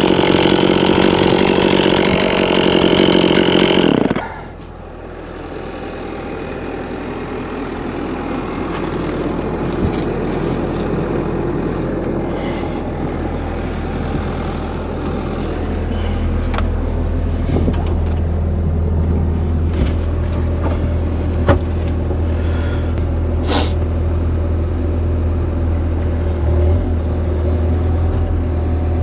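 A chainsaw running at high revs cuts off abruptly about four seconds in. A diesel engine then runs steadily underneath, slowly getting louder, with a few faint knocks.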